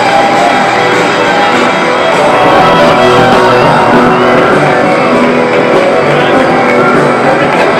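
Loud wrestling entrance music playing continuously.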